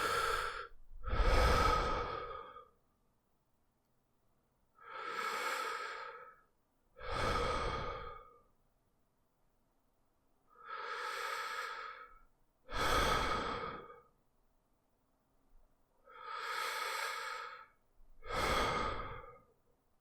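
A person breathing slowly through the mouth, an audible breath in followed right away by a breath out, about every six seconds; four such breaths.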